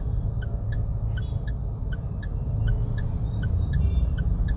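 Car turn-signal clicking inside the cabin of a Mahindra SUV, an even tick-tock of about three clicks a second, with the indicator on for a right turn. The low rumble of the engine and road at crawling speed runs underneath.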